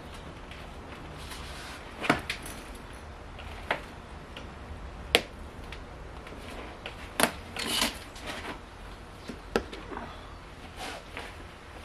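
Scattered sharp knocks and clicks, with a half-second scrape about two-thirds of the way through, from hand work on the floor pan of a Porsche 924 being stripped of its interior.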